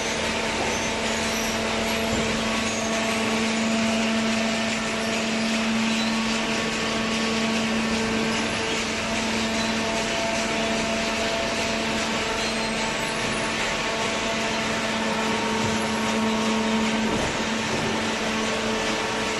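Vertical cardboard baler's hydraulic power unit, an electric motor and pump, running with a steady hum and a constant low tone under a wash of machine noise.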